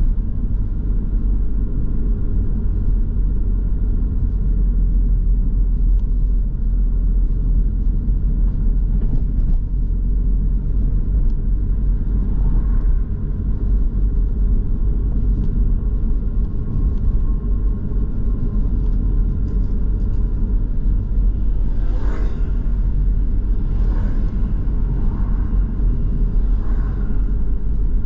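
A car driving on a city street: a steady low rumble of engine and tyre noise, with a few faint brief higher sounds over it in the last third.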